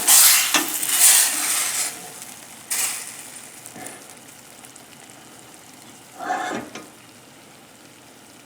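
A spoon or spatula scraping and spooning the sautéed mushroom and onion mix out of a pan. There is a run of loud scrapes over the first two seconds, another about three seconds in, and one short scrape around six seconds.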